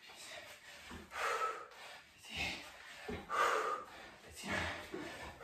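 A man's hard breathing while doing reverse lunges: four forceful, breathy exhales about a second apart, one with each rep.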